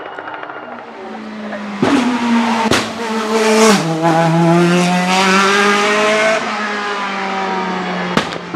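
Mercedes-AMG C63 DTM race car's naturally aspirated 4.0-litre V8 at high revs as it passes, growing loud about two seconds in. Its pitch steps down once near the four-second mark, and a few sharp cracks cut through.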